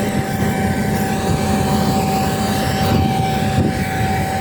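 Claas Lexion 8900 combine harvester running steadily as it harvests wheat: a constant low drone with a steady high whine over it.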